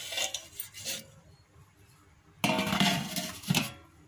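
Steel plate and steel cooking pot clinking and scraping together, metal on metal, as the plate is set onto a stand inside the pot. A few short clinks come at the start, then a louder, longer clatter about two and a half seconds in.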